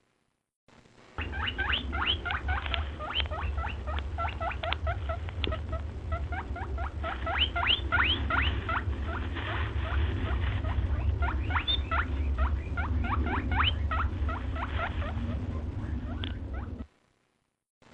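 A chorus of many small animals chirping or squeaking, each call a quick rising note, several a second, over a steady low rumble. The sound cuts out for about a second at the start and again near the end.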